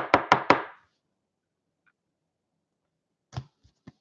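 Four quick, sharp clicks of trading cards and a hard plastic card holder being handled on a table, then a few softer taps near the end.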